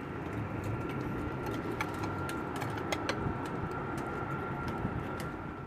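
Steady machinery hum with a thin, steady high whine running through it, dotted with light clicks; the whine cuts off near the end.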